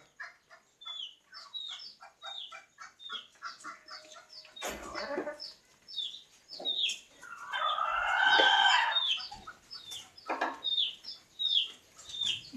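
Chickens calling: short high falling calls repeat every half second or so, with a quick run of clucks in the first few seconds and one louder, drawn-out call lasting about two seconds near the middle.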